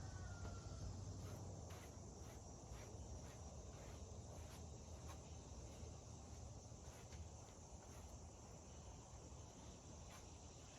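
Near-silent room tone with a low hum and faint, evenly spaced ticks, a little under two a second.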